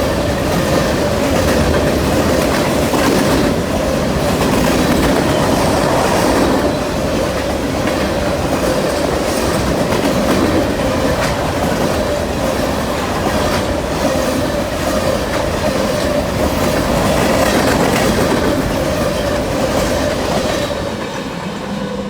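BNSF freight train rolling past, its wheels clacking over the rail joints in a dense stream of clicks, with a steady high tone over the rumble. The sound eases off near the end.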